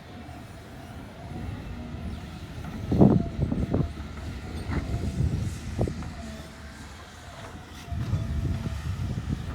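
Heavy construction machinery running with a low, steady rumble, with sharp clunks about three seconds in and again near the middle.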